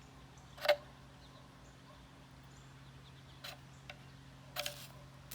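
Ferro rod struck to throw sparks into a jute-twine tinder bundle: three short, sharp scrapes, the loudest a little under a second in, a lighter one about three and a half seconds in, and a longer one near the end. A faint steady hum runs underneath.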